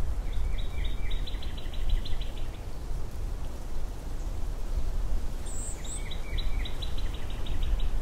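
Wind blowing in a steady low rumble that swells and eases, while a small songbird sings two short phrases of quick repeated high notes, one at the start and another about six seconds in.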